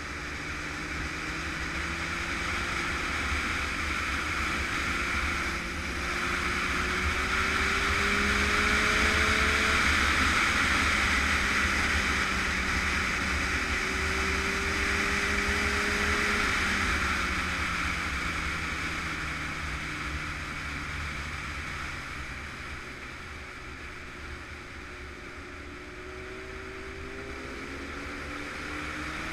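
Honda sport motorcycle at speed, heard from onboard: a steady rush of wind over the microphone with the engine's note slowly climbing in pitch, a brief dip about six seconds in, then falling away from about halfway and climbing again near the end.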